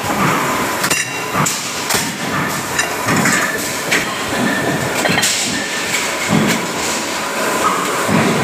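Metal-shop machinery din around a 150-ton press, with irregular sharp metal clanks every second or so as steel sheet is handled in the die.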